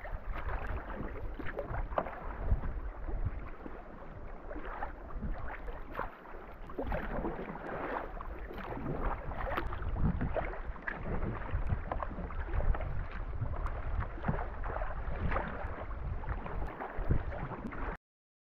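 Sea kayak under way in choppy water: paddle blades dipping and splashing and small waves slapping the hull, with wind rumbling on the microphone. The sound cuts off suddenly near the end.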